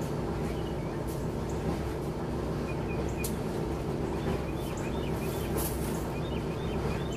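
A steady low hum with birds chirping now and then, mostly in the second half, and a few sharp clicks.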